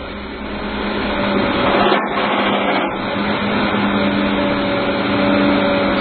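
Excavator-mounted vibratory hammer driving a steel sheet pile: a loud, steady mechanical din with a constant hum, building up over the first couple of seconds.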